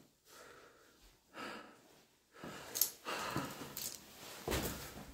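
A person breathing, several breaths in a row, with a short sharp click about three seconds in.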